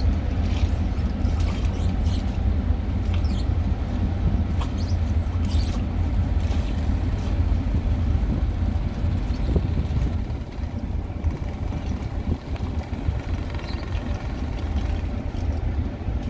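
Steady low rumble of ship engines from a tanker and its harbour tug working close together on the river, easing off slightly about two-thirds of the way through.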